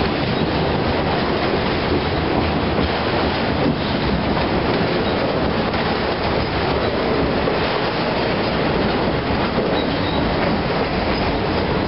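Freight train of autorack cars rolling past a grade crossing: a steady, loud rumble of steel wheels running over the rails.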